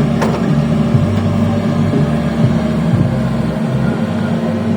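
Large sound system's subwoofer stacks playing heavy bass during a sound check; the deepest bass notes start and stop every second or so over a steady low hum.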